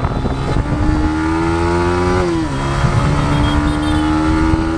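Yamaha MT-15's single-cylinder engine pulling under acceleration, its pitch rising steadily, dropping sharply about two and a half seconds in as the rider shifts up, then rising again.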